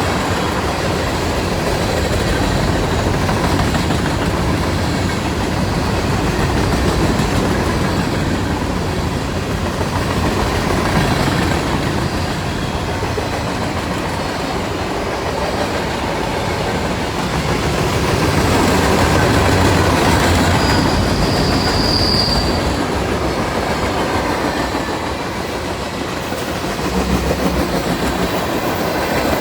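Freight cars of a CSX manifest train rolling past, a steady rumble of steel wheels on the rails. A brief high-pitched wheel squeal rises out of it about two-thirds of the way through.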